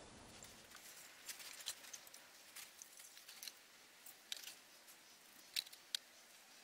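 Faint scattered light clicks and small scrapes from a stainless steel bowl being handled, over a quiet background.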